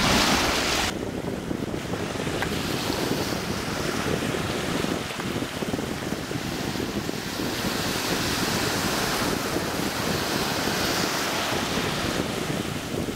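Surf washing up on a sandy beach, a steady rush with slow swells as waves come in and draw back, and wind rumbling on the microphone. A louder rush of water or wind comes in the first second.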